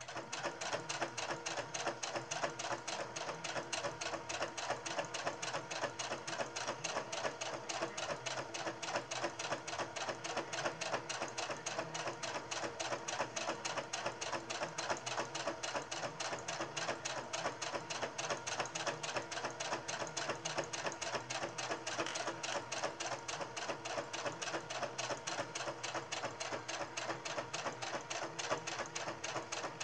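Electric sewing machine running steadily, its needle clattering in a rapid even rhythm as it stitches a fabric tie down; it starts suddenly right at the beginning.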